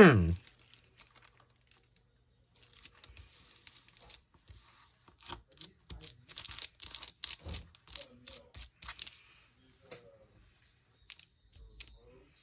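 Paper rustling and crinkling with a tearing sound and a run of small clicks and taps, as craft paper pieces are handled and pressed down to stick onto a journal page.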